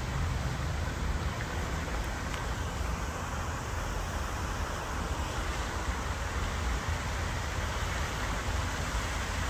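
Water from a large display fountain's many jets splashing down into its basin: a steady rain-like rushing with a low rumble underneath.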